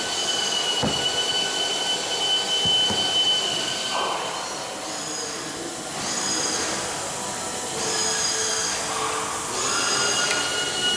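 High-pitched whine of a power tool running in spurts of about two seconds, its pitch shifting from one spurt to the next, with a couple of sharp knocks in the first few seconds.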